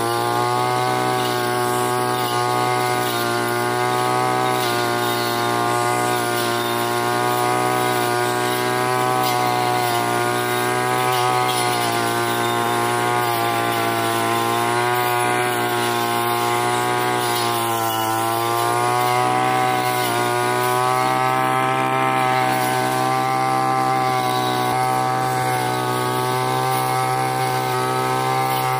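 Petrol brush cutter engine running at high revs while its circular blade cuts through grass and woody saplings. The engine pitch wavers as the blade meets the stems and dips briefly about two-thirds of the way through.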